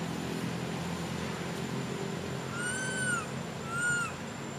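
Young monkey crying: two high, arched coo calls that rise then fall, the first about half a second long and a shorter one about a second later. A steady low rumble runs underneath.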